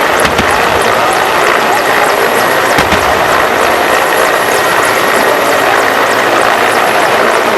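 Mil Mi-17 helicopter's twin turboshaft engines and rotor running loud and steady, with a faint high whine over the noise.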